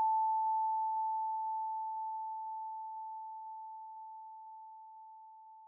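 A single held synthesizer note, one steady pure-sounding tone, fading out slowly at the end of the music.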